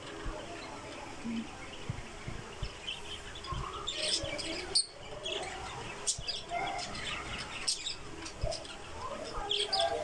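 Caged budgerigars chirping and chattering: many short, high chirps scattered throughout, busiest from about four seconds in.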